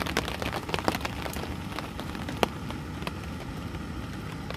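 Log campfire crackling and popping, many small sharp cracks over a steady hiss, with one louder pop about two and a half seconds in.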